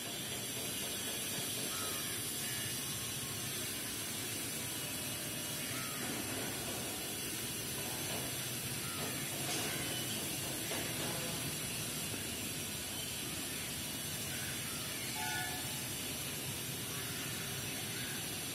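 Steady hiss of outdoor background noise, with a few faint short chirps now and then.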